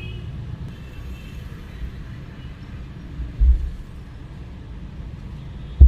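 Mercedes E280's V6 engine idling with a steady low rumble, keeping the battery charging during a diagnostic scan. Two dull, low thumps come through, one a little past halfway and a louder one at the end.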